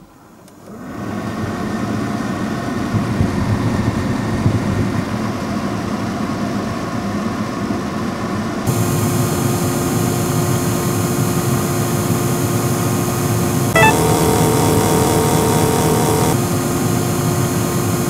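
Honda Vamos heater and air-conditioning blower fan starting up about a second in and running steadily, a hum with a rush of air, on a freshly fitted aftermarket blower motor whose noise is now smaller. From about nine seconds in it is heard close up at the blower housing, with more airy hiss, and a short click comes about fourteen seconds in.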